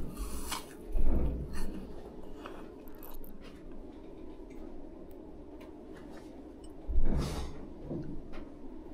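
Small tabletop handling sounds: light clicks and taps of fingers and a wooden pick against a ceramic plate, with soft thuds about a second in and about seven seconds in.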